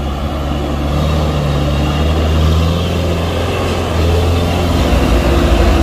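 Diesel engine of a loaded light truck running under heavy load as it climbs a steep, muddy dirt slope, a steady low drone that grows louder toward the end.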